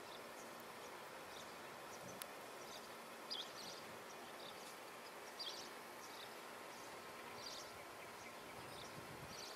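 Faint outdoor ambience with a small bird giving short, high chirps every two seconds or so over a steady hiss, and one faint click about two seconds in.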